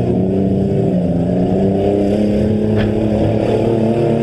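Demolition derby car engine held at high revs, its pitch rising slightly at first and then holding steady, with a faint knock about three seconds in.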